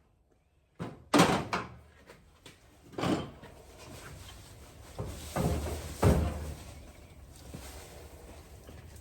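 Four heavy knocks in the shop. The first, about a second in, is the loudest, and the others follow about three, five and six seconds in, with quieter scraping and handling noise between them.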